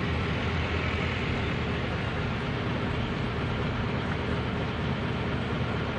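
Steady road and engine noise of a moving vehicle, even and unbroken.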